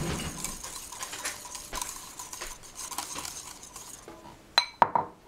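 A utensil stirring mayonnaise in a bowl, scraping and ticking against the sides as the lemon juice is worked in, tapering off; near the end, two sharp clinks of the utensil against the bowl.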